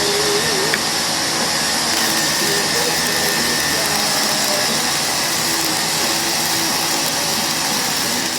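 Self-shielded flux-cored arc welding with NR-305 Innershield wire: a steady, loud crackle and hiss of the arc burning continuously, with one small click about a second in.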